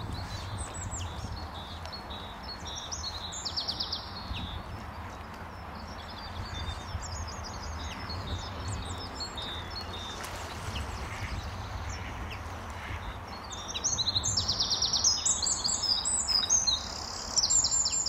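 Small songbirds singing, with scattered high chirps and trills throughout and a louder run of rapid trilling in the last few seconds, over a steady low background noise.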